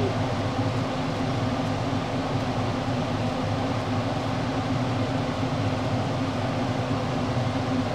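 Minced meat sizzling in a frying pan and potatoes boiling in a pot on a gas hob, with a steady low hum underneath.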